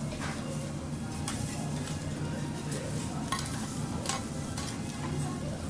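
Food sizzling on a teppanyaki griddle while the chef works it with a metal spatula, with a steady hiss and several sharp clicks of metal on the hot plate.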